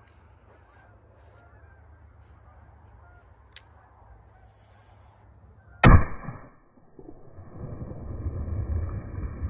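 A single shot from a Smith & Wesson Model 29 .44 Magnum revolver, fired into water jugs, about six seconds in and by far the loudest sound, ringing briefly after; a short click comes a couple of seconds before it. About a second after the shot a low rushing noise rises and keeps on.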